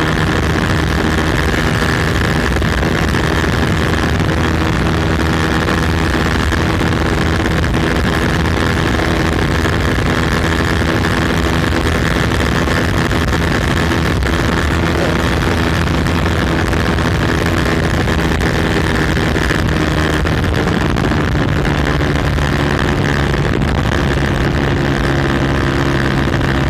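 Motorcycle with a loud aftermarket exhaust running steadily while being ridden. The engine note drops lower about twenty seconds in.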